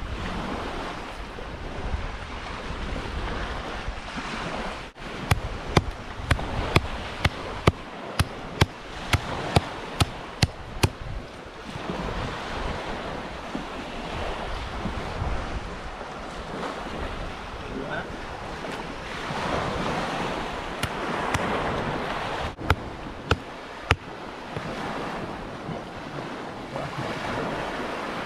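Sea waves washing, with wind buffeting the microphone. A run of sharp clicks, about one or two a second, comes about a fifth of the way in, and a few more come later.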